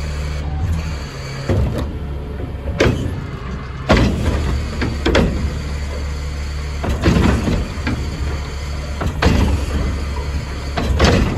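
Garbage truck's engine running steadily, with a series of loud clanks and bangs every second or two.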